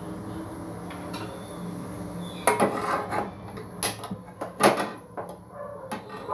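A large metal cooking pot being shifted by hand on a stovetop: a string of sharp clanks and knocks starting about two and a half seconds in, over a low steady hum.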